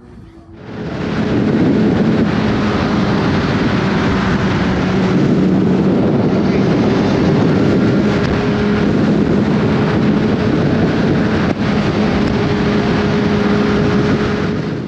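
Motorcycle riding at a steady speed: wind rushing over the microphone with a steady engine drone underneath. It starts up about a second in and cuts off abruptly at the end.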